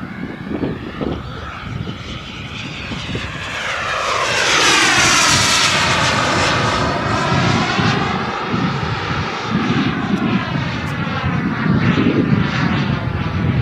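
KingTech K-45G2 kerosene turbine of a Mini Avanti S RC jet running in flight as the model passes overhead. It grows louder to its closest pass about five seconds in, and its tone sweeps down and back up as it goes by.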